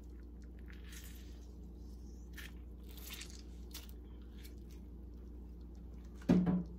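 A fresh lemon half squeezed by hand over a pan, with faint, scattered squishing and crackling of the pulp and rind. A steady low hum runs underneath, and a brief, louder thud comes near the end.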